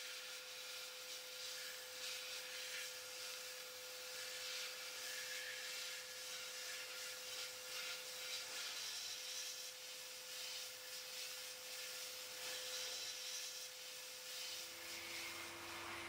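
Sandblaster nozzle hissing steadily inside a blast cabinet, firing fine glass-bead media to strip rust and corrosion from a cast-metal lighter part. A faint steady hum sits underneath and steps down in pitch near the end.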